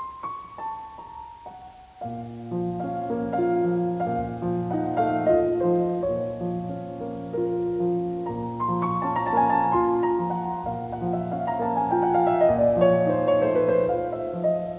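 Piano music: a few single notes, then fuller playing over a held low bass from about two seconds in, with falling runs near the end.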